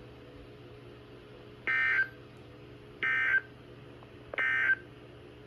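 Emergency Alert System end-of-message data bursts: three short, shrill digital SAME header bursts (the "NNNN" code) about 1.3 seconds apart, marking the end of the broadcast alert.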